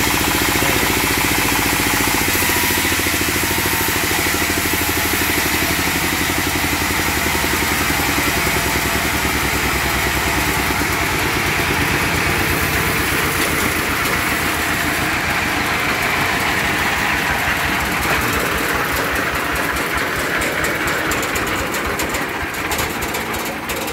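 Horizontal single-cylinder diesel engine running steadily, driving a trailer-mounted band sawmill on a test run. Near the end its beat slows and the sound falls away.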